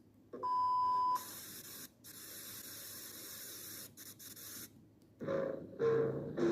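A short steady beep, then bursts of broadcast-style static hiss with brief cut-outs. A tune starts about five seconds in.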